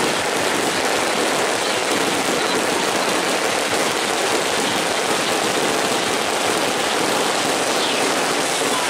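Fireworks going off in a dense, unbroken crackle, so many at once that the bangs merge into one steady noise.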